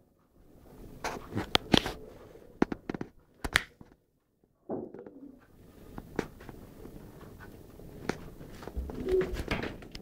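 Scattered clicks, knocks and rustling as a cat moves about among tins and packets on a food cupboard shelf, with the sound cutting out completely for under a second in the middle.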